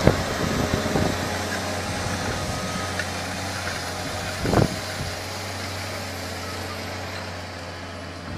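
Tractor engine running steadily as it pulls a power harrow and seed drill through ploughed soil. There are a few short thumps near the start, the loudest about four and a half seconds in.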